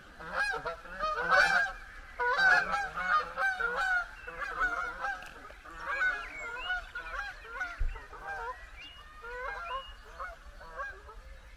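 A flock of geese honking, many overlapping calls in quick succession, loudest in the first few seconds and then thinning out and growing fainter.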